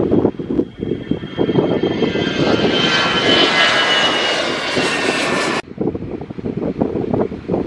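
Jet airliner taking off and passing, its engines running with a high whine whose tones fall slowly in pitch, over wind noise on the microphone. The engine sound cuts off suddenly about five and a half seconds in.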